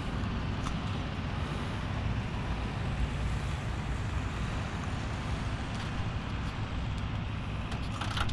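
Steady low outdoor rumble, with a couple of faint clicks.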